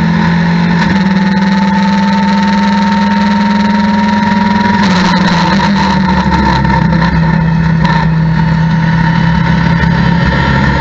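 Mitjet race car engine heard from inside the cockpit, pulling hard in fifth gear with its note slowly rising. About five seconds in, the note breaks and drops as the car slows and shifts down to fourth, then runs on at lower revs.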